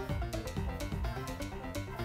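Background music with a steady drum beat and quick melodic notes.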